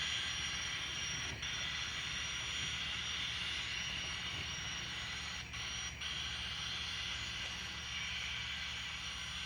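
ScaleTrains Rivet Counter model of a Union Pacific gas turbine locomotive, its DCC sound decoder playing the steady hissing whine of the turbine through the model's speaker while it runs at speed step 8.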